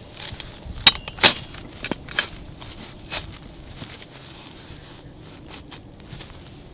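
Chumma metal sod plugger being pushed by foot into wet turf: a few sharp metal clicks and knocks, the loudest two close together about a second in, then fainter crackling as it settles in the soil.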